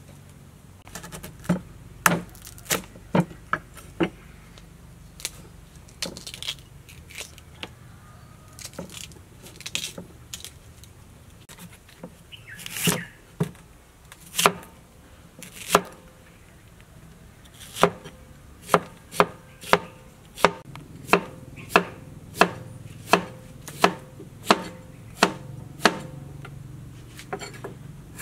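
Large kitchen knife chopping a fresh bamboo shoot against a wooden cutting board: sharp knocks, spaced irregularly in the first half, then a steady run of about two chops a second.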